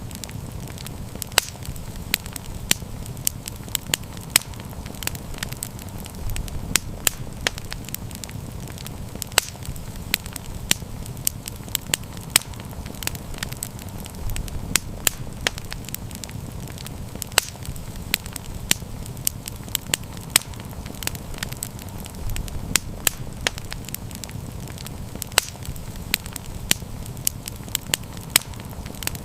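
Wood campfire burning with frequent sharp, irregular crackles and pops over a low steady rumble of flame.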